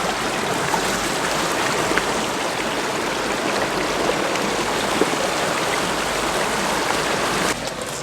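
Stream water rushing steadily over rocks, dropping a little in level near the end.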